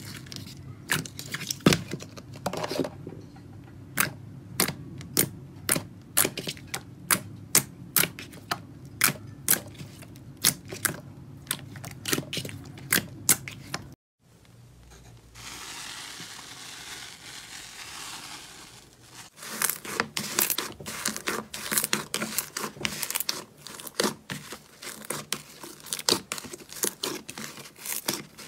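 Slime squeezed and kneaded by hand, giving a quick run of sharp wet clicks and pops from trapped air. About halfway through, a bubbly foam-filled slime gives a few seconds of soft steady fizzing hiss. The clicks and pops then start again as a pink and purple slime is worked in a bowl.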